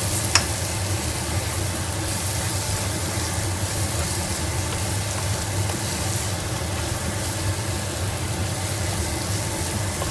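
Onion-tomato masala sizzling in oil in a nonstick kadai while a wooden spatula stirs it, with two light knocks of the spatula against the pan near the start. A steady low hum runs underneath.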